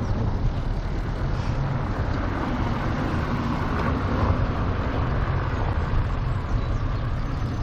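Steady wind and road noise while riding a bicycle, with a heavy low rumble of wind buffeting the microphone.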